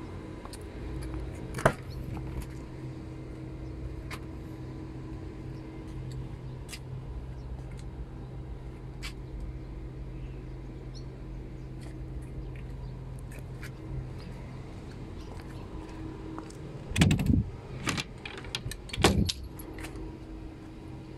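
Door handling on a small electric delivery truck: a single click about two seconds in, then near the end two loud clunks with rattling as the rear cargo box door is opened. A steady low hum runs underneath throughout.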